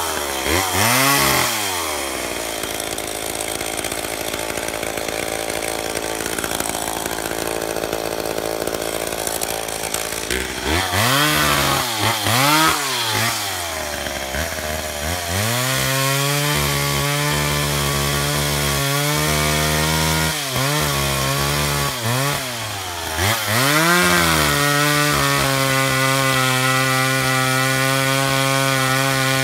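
McCulloch Pro Mac 55 two-stroke chainsaw cutting small spruce. It is revved up and down sharply several times and held at a steady high throttle for long stretches through the cuts.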